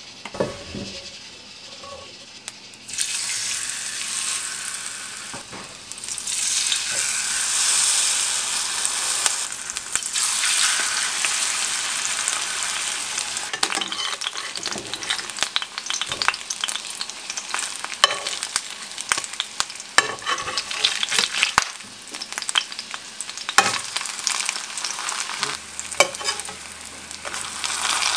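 Spring cabbage pancake frying in oil in a pan: a loud sizzle that starts about three seconds in, with frequent sharp clicks and crackles over it.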